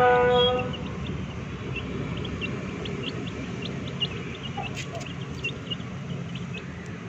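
Chicks peeping: many short, high peeps, a few each second, over a low steady background hum. A held musical note ends within the first second.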